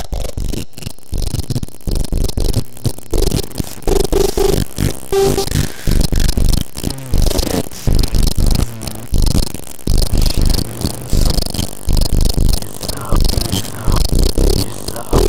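Dissonant experimental electronic music: dense noisy, scraping textures pulsing in repeated loud surges, with scattered clashing tones.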